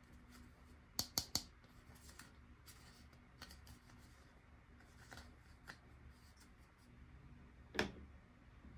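Light clicks and taps of small plastic toy pieces and packaging being handled: a quick run of three clicks about a second in, a few faint ticks, and a louder knock near the end.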